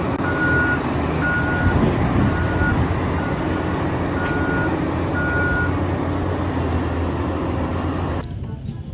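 Heavy machine's diesel engine running with a reversing alarm beeping about once a second. The beeps stop about two-thirds of the way in, and the engine sound cuts off suddenly near the end.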